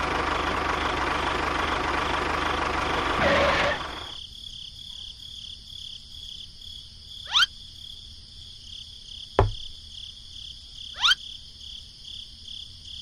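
A tractor engine running, stopping abruptly about four seconds in. After it a steady high-pitched whine carries on, broken by two quick rising whooshes with a single thud between them.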